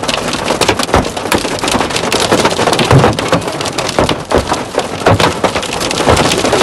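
Hail with heavy rain hitting the car's roof and windshield, heard from inside the cabin: a dense, unbroken clatter of hard knocks over the rush of rain.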